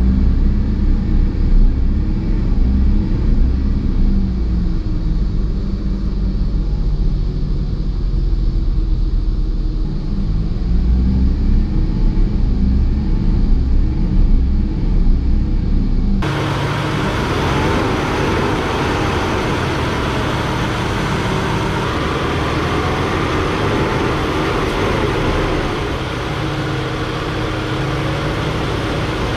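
Mercedes-Benz W124 E320's straight-six engine, heard from inside the car as the gas pedal is pressed: the revs swell and fall back but won't climb past about 1,500 rpm, a fault in the engine. About halfway through the same engine is heard running from the open engine bay, a steadier, brighter sound.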